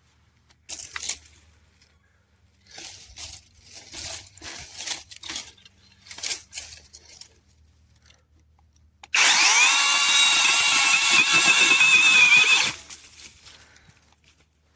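Cordless brushless mini chainsaw spinning up and cutting through a shrub branch for about three and a half seconds, then stopping abruptly. Before it come several seconds of scattered rustling and crackling as the brush is handled.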